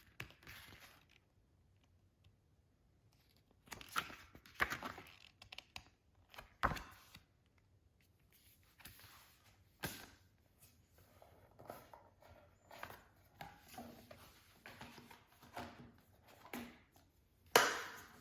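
Hands handling disc packaging: intermittent rustling and crinkling with scattered light clicks and knocks, and a louder rustle near the end.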